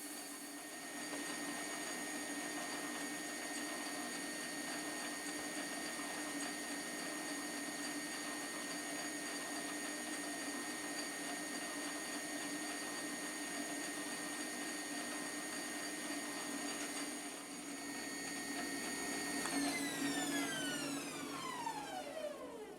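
Small metal lathe running with a steady whine while a steel knob spins in it for polishing with emery paper and steel wool. About twenty seconds in the motor is switched off and the whine falls steadily in pitch as the lathe spins down.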